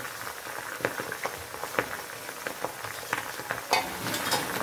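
Fresh henna leaves frying in hot coconut oil in an iron kadai: a steady sizzle with irregular sharp crackles and pops, one louder pop near the end, as the water in the freshly added leaves boils off in the oil.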